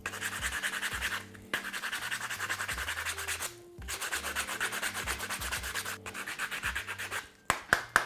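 Coarse P40 sandpaper on a cork sanding block rubbed fast back and forth over a wooden broomstick dowel, rough-sanding it round. The strokes come about five a second, in runs broken by short pauses, with a few sharp knocks near the end.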